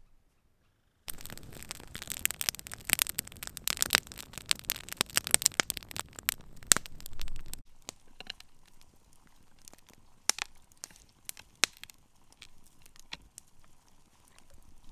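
Dog chewing a wooden stick: a dense run of sharp cracking and splintering for about six seconds that breaks off abruptly, then scattered cracks and crunches.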